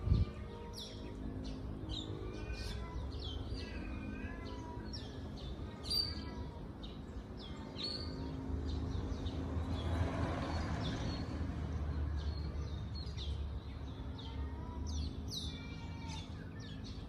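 Many small birds chirping overhead, a dense run of short, high, falling calls, several a second. Under them a steady low hum, with a broader rumble swelling in the middle.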